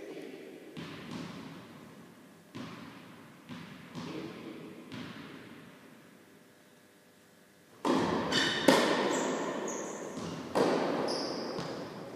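Tennis ball bouncing on an indoor hard court and being struck with a racket, each impact echoing through the large hall. The first several hits are spaced a second or so apart; after a short lull, louder impacts come about eight and ten seconds in, mixed with a few short high squeaks.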